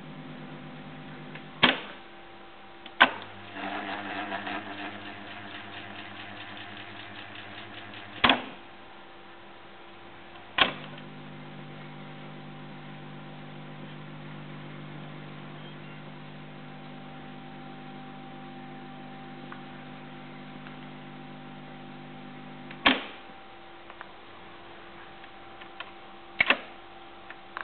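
RFT Smaragd reel-to-reel tape recorder being operated: its piano-key transport buttons clunk about six times, with its motor humming steadily between them. After the second clunk the tape transport whirs rhythmically for about five seconds.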